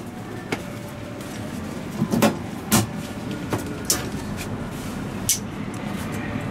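Metal utensil knocking against a metal batter bowl and cast-iron mini castella molds: scattered sharp clinks, the loudest about two seconds in, over a steady low hum.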